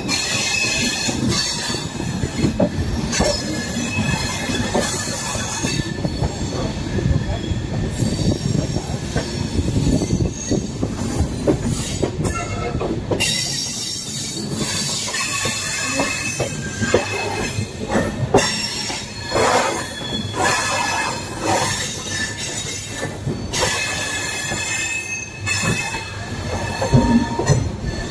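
Lucknow–Patliputra Superfast Express running on the track: a steady rumble of the moving train with a high, thin squeal from the wheels on the rails and scattered clicks and knocks.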